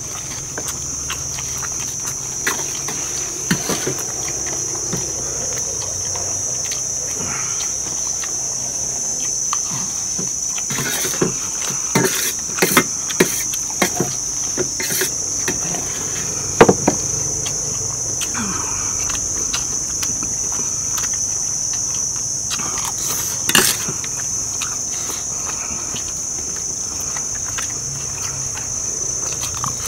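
Steady high-pitched drone of insects such as crickets, with scattered sharp clinks and knocks of spoons against plates, the loudest about halfway through and again a little later.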